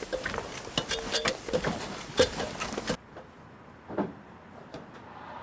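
Quick metallic clicks and clanks of feet and hands on an aluminium stepladder during a climb. About three seconds in the sound drops abruptly to quiet, with one knock about a second later.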